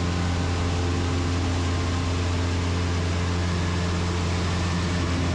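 Super Decathlon's Lycoming four-cylinder engine and propeller running steadily with a deep drone, mixed with airflow hiss, heard from inside the small cockpit during the pull into an aerobatic loop.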